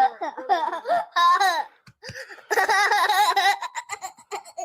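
A person laughing, high-pitched and wavering, in two stretches with a short pause between them.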